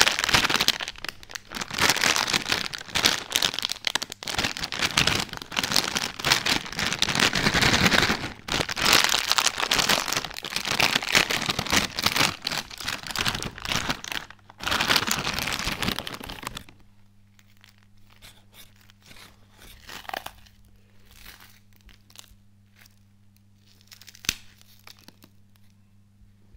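Metallised plastic snack packet of wheat puffs crinkling and tearing as it is handled and torn open, loud and continuous for about the first sixteen seconds. Then it stops suddenly, leaving only a few faint rustles and small clicks over a low steady hum.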